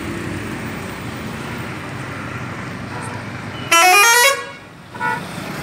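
Scania coach's horn sounding one loud blast of about half a second whose pitch climbs, followed by a short second toot about a second later, over steady street noise.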